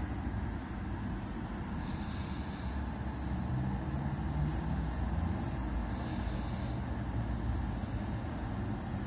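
Steady low rumble of vehicle noise, with a faint short hiss coming back about every four seconds.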